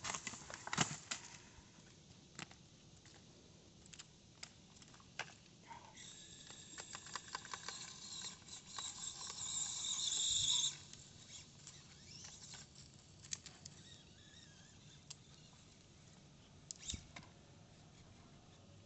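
Axial SCX24 micro RC crawler driving over broken concrete: scattered clicks and scrapes of its tyres and chassis on the rock. From about six seconds in, a high whine from its small electric motor and gears, mixed with scrabbling, grows louder for some four seconds and cuts off suddenly.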